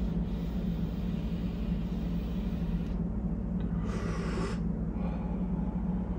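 A steady low hum throughout, with a short breathy exhale of vape vapour about four seconds in.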